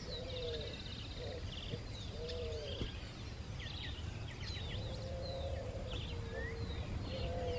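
Dusk chorus of wild birds and other small animals: a low arching call repeated about once a second, with many higher chirps, whistles and short buzzy trills over a steady low rumble.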